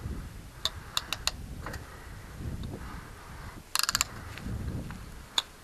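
Bicycle drivetrain being worked by hand while checking the gear shifting: sharp separate clicks and a quick rattling run of ratchet clicks about four seconds in, over a low whir of the turning chain and cranks.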